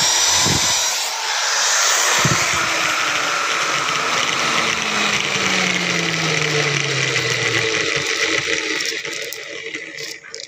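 Electric drill boring pilot holes in wood for the drawer lock's screws, running steadily with a tone that drops in pitch through the middle and stopping near the end.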